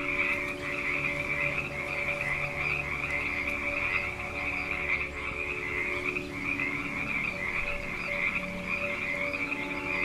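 Frogs calling in a chorus: a dense, high trill that runs on without a break.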